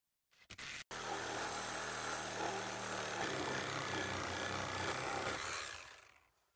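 A power tool working wood, with a couple of short knocks just before it starts. It runs steadily under load for about four and a half seconds, then winds down near the end.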